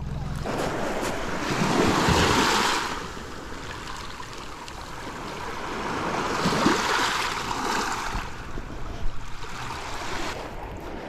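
Small waves washing in on a rocky lakeshore, the hiss of the wash swelling and fading three times.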